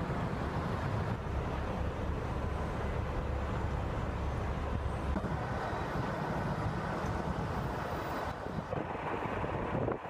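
Snowy city street traffic: a steady low rumble of vehicles, with wind buffeting the microphone. The sound changes abruptly about eight seconds in, where the shot cuts.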